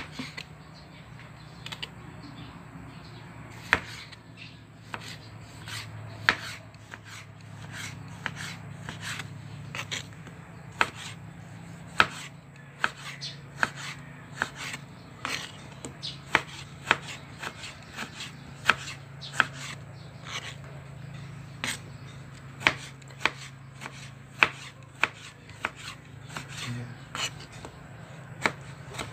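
Kitchen knife slicing tomatoes on a plastic cutting board: a string of sharp taps as the blade hits the board, irregular and coming about one to two a second, over a low steady hum.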